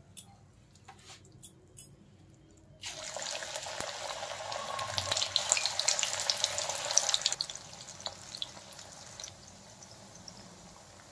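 Spinach pakora batter deep-frying in hot oil in a wok. A few light clicks, then about three seconds in a loud crackling sizzle starts suddenly, easing off after about four more seconds to a faint sizzle.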